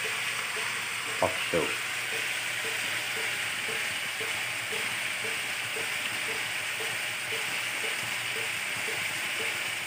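Steady sizzling and simmering hiss of food cooking in a pan on a gas stove, with a faint regular ticking about three times a second.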